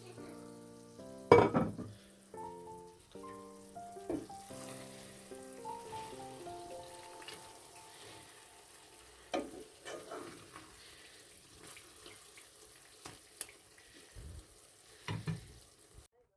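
Soft background music over kitchen sounds: a faint frying sizzle and scattered clatters and knocks of utensils, the loudest about a second in.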